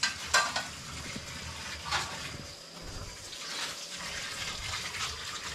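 Dry bulgur grains being poured, a steady rushing hiss with a few louder swishes.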